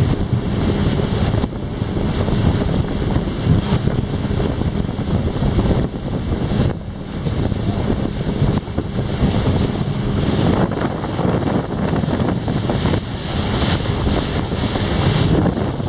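Wind buffeting the microphone on a speedboat under way, over the steady hum of its engine and the rush of water past the hull. The wind noise rises and falls in gusts.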